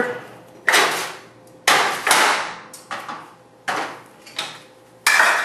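A string of about six or seven sharp knocks and clatters, each dying away quickly: kitchen dishes and pans being handled and set down.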